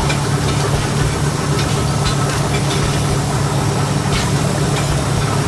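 Steady low hum of a running machine, engine-like and unchanging, with a few faint ticks over it.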